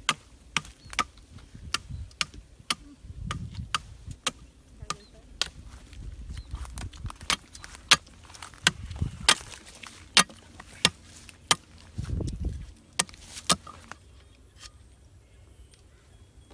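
Machete chopping into a bamboo pole braced in a tree fork: a steady run of sharp chops, about two a second, that stops a couple of seconds before the end.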